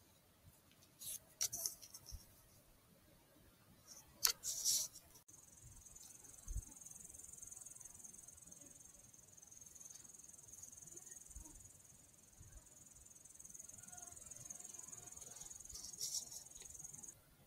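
A few sharp rustling knocks in the first five seconds, the loudest about four to five seconds in, then a steady high-pitched chirring of insects in the field that stops shortly before the end.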